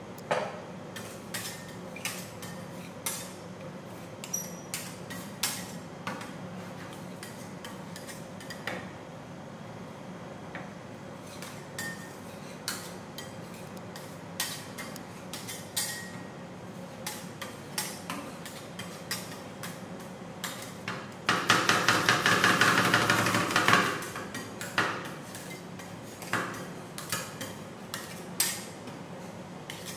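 Metal spatulas striking a steel ice-cream-roll cold plate: scattered sharp taps and chops, then about two seconds of fast, rapid chopping roughly two-thirds of the way through, over a steady low hum.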